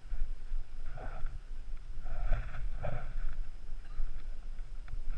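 Wind buffeting a body-worn camera's microphone, a steady low rumble. A few short breathy sounds rise over it, once about a second in and twice between two and three seconds in.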